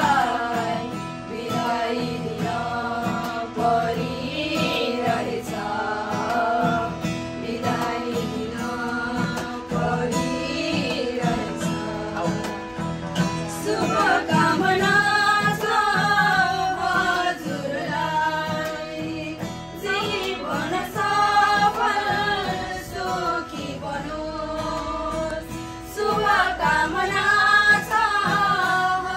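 Several women singing a farewell song together, accompanied by an acoustic guitar.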